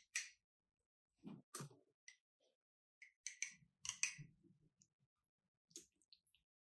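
Scattered small clicks and light knocks with near silence between, including a quick cluster of them about three to four seconds in.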